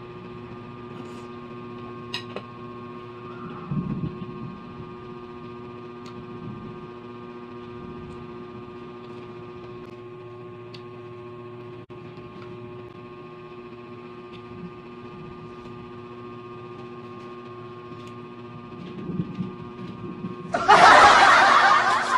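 A steady electrical hum with several fixed tones, under faint mouth and chewing sounds from eating now and then. About a second and a half before the end, a loud hissing rush of sound cuts in suddenly.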